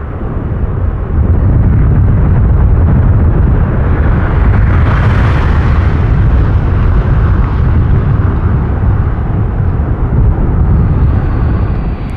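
Rolls-Royce RB211 turbofans of a Boeing 757-200 on its landing roll, a loud deep rumble that swells about a second in as the engines spool up in reverse thrust to slow the aircraft. The sound stops abruptly just before the end.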